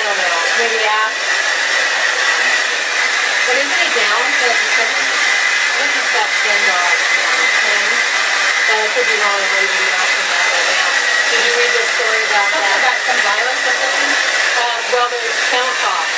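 A hair dryer blowing steadily: a loud, even rush of air with a steady high whine through it.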